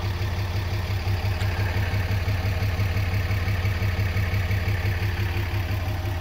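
Ram 2500's 6.7-litre Cummins inline-six turbo diesel idling steadily, with an even low pulse.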